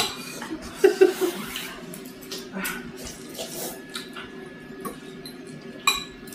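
Ramen noodles being slurped, in repeated short wet bursts, with a few light clicks of forks against the bowls.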